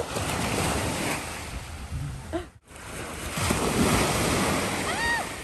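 Ocean surf washing in, with wind buffeting the microphone. The sound drops out briefly about halfway through.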